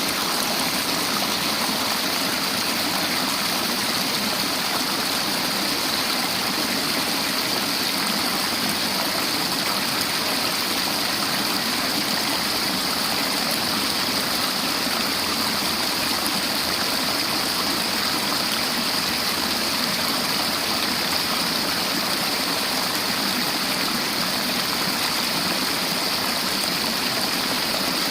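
River water flowing over rocks: a steady, even rushing.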